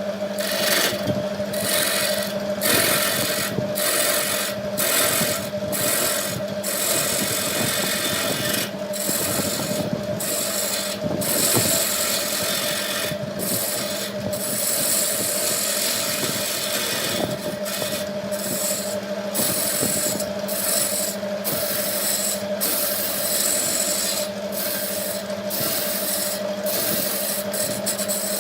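Wood lathe running with a steady motor hum while a tool rubs against the spinning wood in repeated passes, the scraping hiss breaking off briefly each time the tool is lifted.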